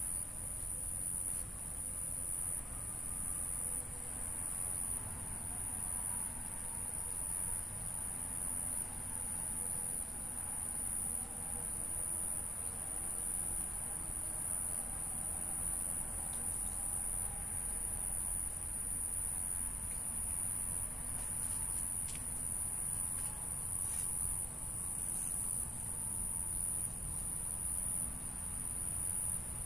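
A chorus of insects calling in one steady, high-pitched, unbroken tone, over a low background rumble.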